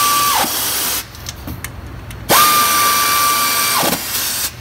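Power tool spinning a 15mm universal socket to run bolts down: a steady motor whine that ends about half a second in, then a second run of about a second and a half, each run dying away with a short rattle.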